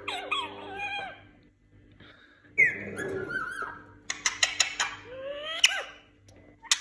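Indian ringneck parakeet chattering: quick runs of clicks and squeaky whistles that bend up and down, with a sharp high call falling in pitch about two and a half seconds in and a short pause before it.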